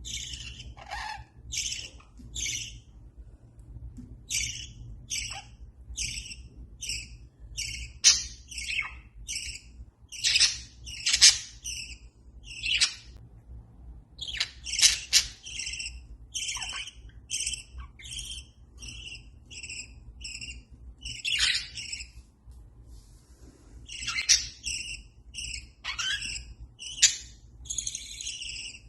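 Budgerigars chirping: a steady run of short, high chirps, about two a second, with a few louder, sharper calls now and then.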